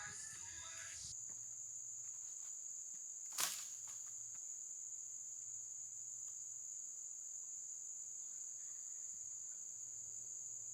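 Insects, crickets as it sounds, chirring in a steady high-pitched chorus, with one sharp knock about three seconds in.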